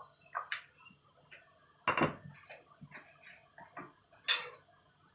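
Scattered clinks and knocks of kitchen utensils and dishes, the loudest about two seconds in and another sharp one near the end.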